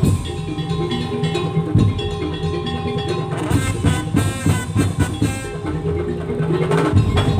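Madurese tong-tong (daul) ensemble playing: wooden slit drums and drums beat a rhythm under held melodic notes.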